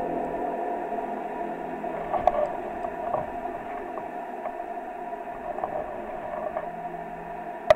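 Aeolian wind harp strings sounding in the wind: a steady drone of several held tones that eases slightly, with a few light clicks about two seconds in and a sharp click near the end.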